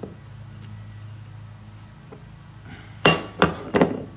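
Three sharp metallic clinks in quick succession about three seconds in, each with a short ring: a hand tool knocking against the portable bandsaw's metal wheel as a rubber tire is fitted. A steady low hum runs underneath.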